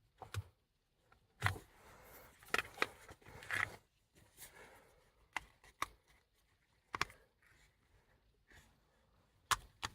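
Scattered sharp clicks and light rustling as plastic turn signal switch assemblies are handled and turned over.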